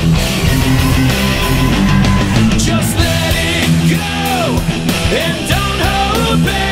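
Rock band music: guitar, bass and drums playing a steady beat, with a lead guitar line bending and sliding in pitch from about three seconds in.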